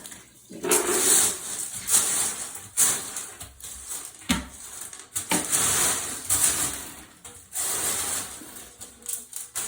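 Shattered shower-door glass being swept up: an uneven run of scraping strokes with sharp clicks and rattles of glass fragments.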